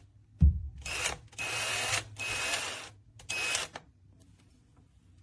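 FADAKWALT 20V cordless drill's motor run in four short trigger bursts, each a rough grinding noise with a thin steady whine over it. The chuck no longer rotates, as its bearing balls have come out. A low thump comes just before the first burst.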